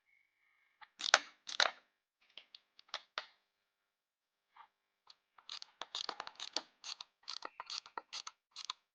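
Hand ratchet wrench clicking in short bursts while bolts are tightened to draw the transmission in evenly, with two louder metallic knocks about a second in.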